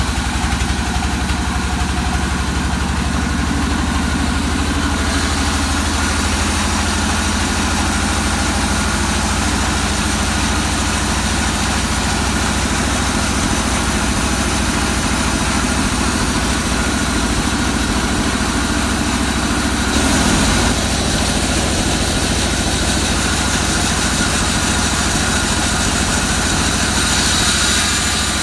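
Sawmill band saw running steadily while its blade rips lengthwise through a waru (sea hibiscus) log, a constant drone under the cutting noise. There is a brief louder surge about twenty seconds in.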